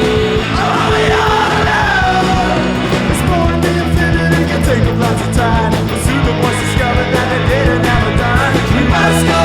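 Loud rock music with a singer's voice, punk-style and energetic, playing continuously.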